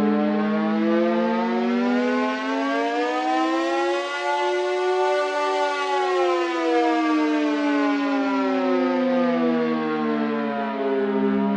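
Civil defense siren wailing: its pitch rises slowly to a peak about halfway through, falls back down, and starts to rise again near the end.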